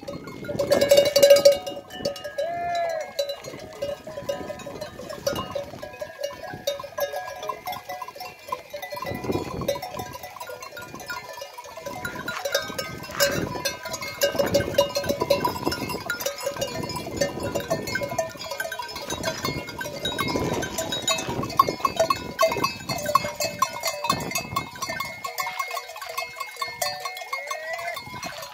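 A large herd of goats milling about, their neck bells clinking and jangling continuously, with a few bleats near the start and near the end.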